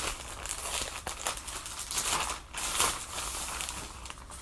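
Plastic clothing packaging crinkling and rustling in irregular handfuls as it is handled and opened.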